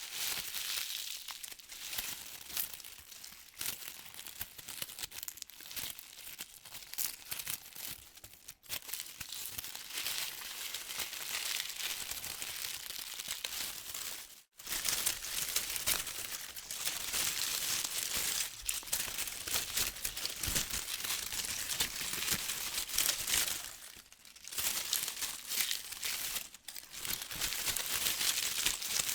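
Wind blowing through tree leaves: a dense, crackling rustle that swells and eases with the gusts, broken by a momentary gap about halfway through.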